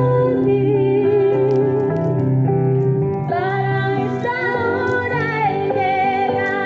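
Worship music: a singer holding long, wavering notes over steady instrumental backing.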